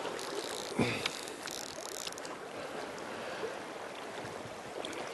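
Steady rush of river current flowing close to the microphone, with one short knock a little under a second in.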